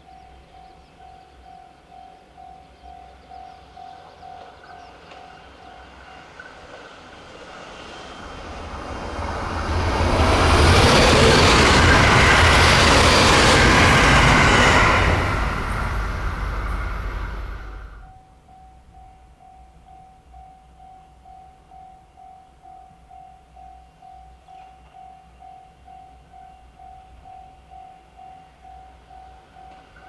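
Japanese level-crossing warning bell ringing about twice a second. Partway through, a limited-express electric train passes close at speed: its noise builds over a few seconds, stays loud for about five seconds and then cuts off abruptly, after which the crossing bell is heard ringing again.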